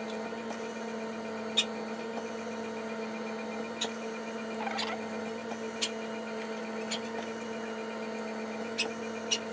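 Steady electrical hum with a few faint clicks scattered through it.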